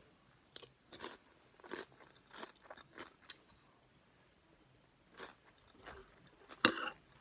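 Crisp corn chips (Frito Scoops) crunching as they are chewed, in irregular crunches with quiet gaps, and a louder sharp crack near the end.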